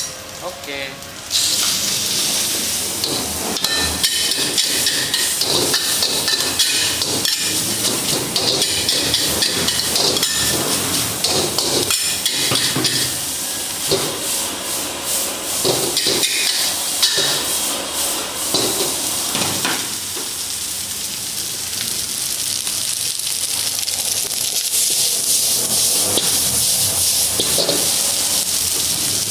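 Fried rice sizzling in a wok over a gas burner as it is stir-fried, a metal spatula scraping and clanking against the wok again and again. The sizzle starts up sharply about a second in and then runs steadily.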